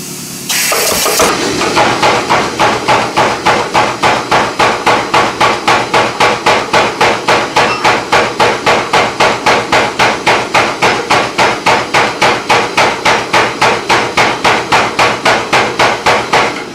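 Power hammer striking a glowing steel bar in a spring die, drawing a tenon down round: a fast, even run of sharp blows at about three a second, starting about half a second in and stopping near the end.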